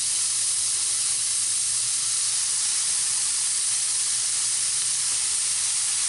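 Chicken skewers sizzling steadily on the hot cast-iron grate of a Lodge Sportsman's charcoal grill, an even high hiss.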